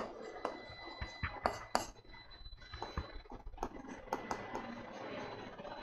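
Writing on a board: an irregular string of sharp taps and short scratches as figures are written and totals underlined.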